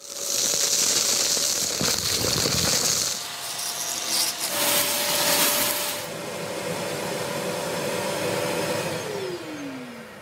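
Kärcher multi-purpose vacuum cleaner running with a steady motor whine and hissing suction that rises twice as it pulls in debris. About nine seconds in the motor is switched off and winds down, its pitch falling away.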